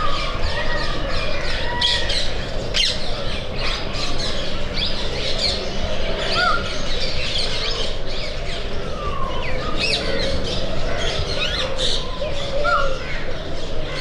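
Many birds chirping and calling at once: a dense, busy chorus of short chirps, whistles and squawks with no pause.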